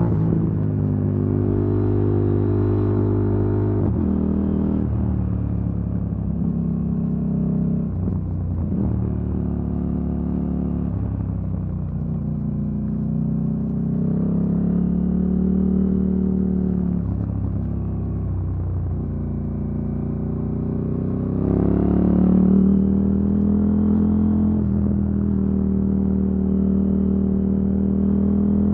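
KTM Duke 890 R's parallel-twin engine, through an Akrapovic silencer with an Arrow decat pipe, running under way. Its note drops about four seconds in, rises and falls through the middle with the throttle, then climbs sharply a little past twenty seconds and holds steady.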